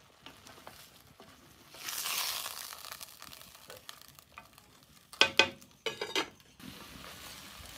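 Beef steak and onion frying in hot oil in a pan: a swell of sizzling about two seconds in, then a cooking utensil knocking and scraping against the pan a few times about five seconds in as the food is stirred, followed by steady sizzling.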